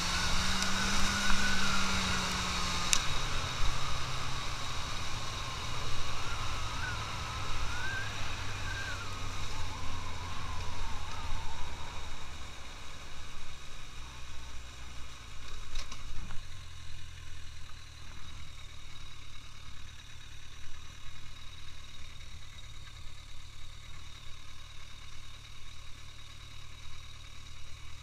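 Suzuki GSX650F motorcycle's inline-four engine running at low speed. The engine note drops about three seconds in, then stays low and even like a near-idle, and is quieter from about halfway through.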